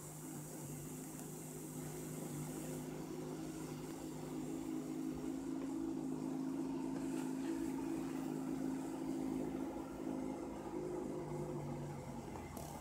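Steady hum of reef aquarium equipment, circulation pumps running, with the lowest part of the hum dropping away shortly before the end.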